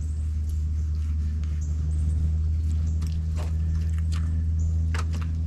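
A knife trimming the red meat from a striped bass fillet, giving a few faint wet clicks and scrapes about three to five seconds in, over a steady low hum that is the loudest sound.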